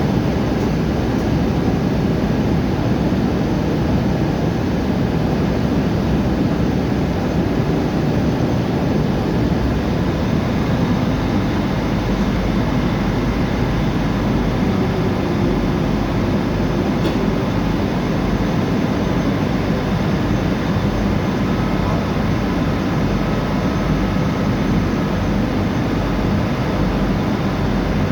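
A river car ferry's engine running with a steady low rumble.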